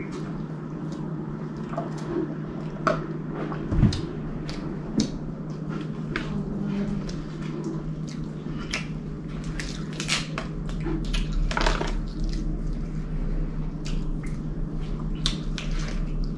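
Sloppy, noisy eating: wet chewing and lip-smacking heard as many short clicks, with hands picking through the food. There is a thump about four seconds in, over a steady low hum.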